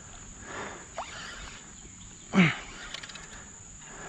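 Steady high-pitched drone of summer insects such as crickets, with one short, loud sound about two and a half seconds in whose pitch falls steeply.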